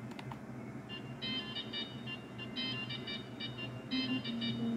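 Studio logo music playing from a television's speakers, picked up off the room: a quick, high-pitched tinkling melody that starts about a second in, over a steady low hum.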